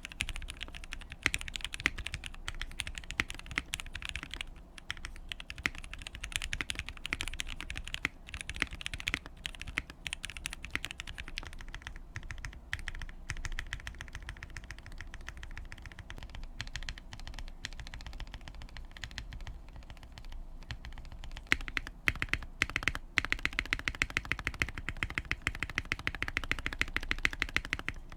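Typing on a KBD67 Lite mechanical keyboard with lubed and filmed Gateron Ink V2 switches, a silicone dampener and the tape mod: a continuous stream of keystrokes with a few brief pauses, getting faster and louder in the last third.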